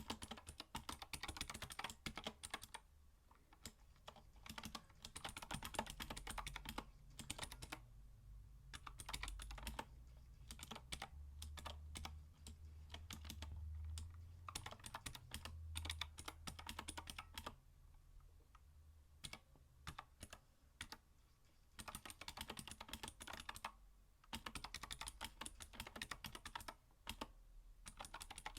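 Typing on a computer keyboard in a sound test: fast runs of key clicks in spells of a few seconds, with short pauses between them.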